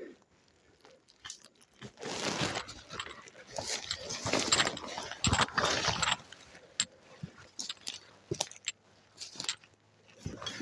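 Footsteps and movement crunching through dry leaves and undergrowth in uneven bursts, with a few sharp snaps or clicks near the middle and later.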